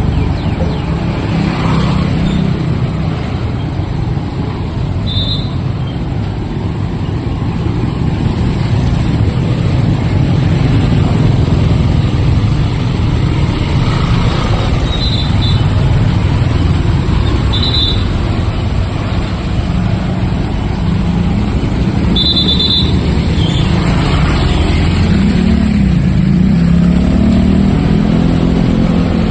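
Road traffic: engines of passing motor vehicles running steadily, with a few short high beeps.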